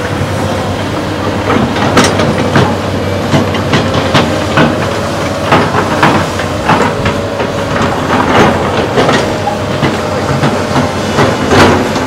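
SANY crawler excavator's diesel engine running steadily under load while it digs, with frequent irregular sharp clanks and knocks as it works.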